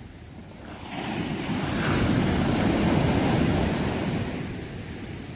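Ocean wave breaking and washing up: the rush of surf swells about a second in, holds, then fades away near the end.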